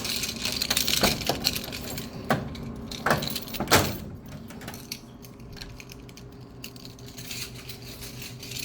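A snack vending machine being opened and handled: a series of sharp clicks and knocks of its lock, door and metal parts during the first four seconds, then quieter rattling over a steady machine hum.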